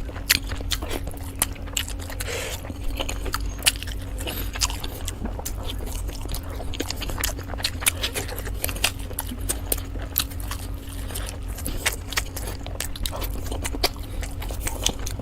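Momos being chewed close to the microphone, with many scattered sharp clicks and smacks, over a steady low hum.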